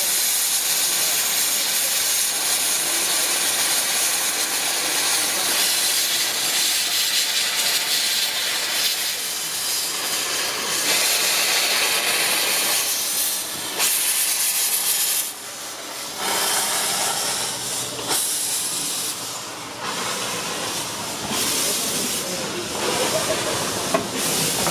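Steam locomotive hissing loudly as steam escapes, a dense steady rush that dips briefly a few times partway through.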